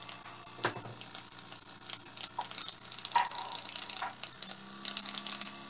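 Small model vertical steam engine running fast with a steady ticking buzz over a steady high hiss, with a few sharp metal clicks as the boiler's firebox door is handled. About four and a half seconds in the engine speeds up and its buzz rises in pitch, the fire getting more air through the door.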